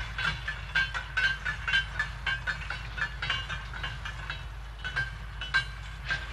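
Freight tank wagon rolling on the rails: a run of sharp metallic wheel clicks, each with a short ringing note, two to four a second and uneven, over a low rumble.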